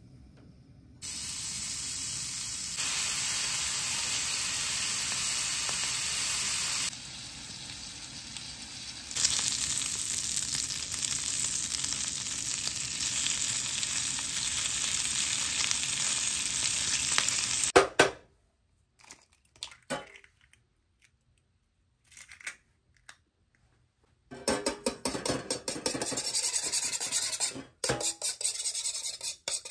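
Bacon sizzling steadily in fat on a Firemaple non-stick grill plate, cutting off abruptly about 18 seconds in. Later, a fork beats eggs in a small metal pan in quick, even strokes, scraping the pan.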